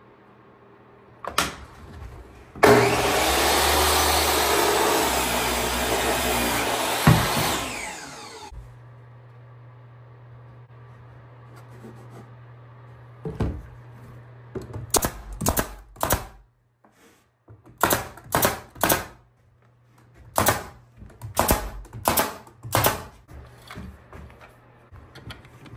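A power saw cutting through a wooden board for about six seconds, then fading as the cut ends. Later comes a string of short, sharp knocks or clacks in small irregular groups.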